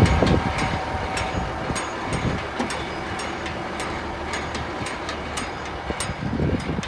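Wind buffeting the microphone in gusts, strongest at the start and again near the end, with faint scattered clicks.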